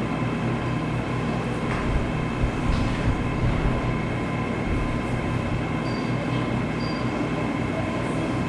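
Steady mechanical hum and hiss, with a few soft low thumps about two to three and a half seconds in.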